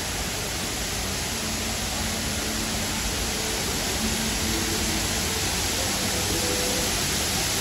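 Steady, even rush of an artificial waterfall, falling water spread across the whole range from low to high.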